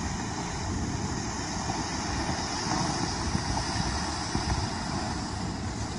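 Steady engine and wind noise of an aircraft flying over the lava field, a dense even rumble with hiss above it.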